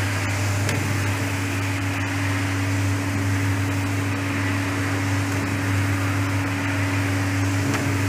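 Coffee roasting machine running: a steady machine hum with a low drone and a higher steady tone over an even rushing noise.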